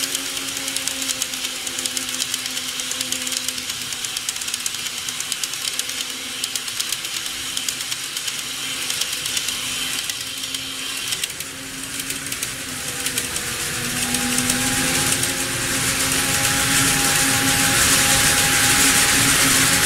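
N-scale KATO E233 series 3000 model train running on plastic layout track: a steady motor hum with fine, rapid clicking of wheels on the rails. From about two-thirds of the way in the running sound grows louder and hissier as another model train approaches.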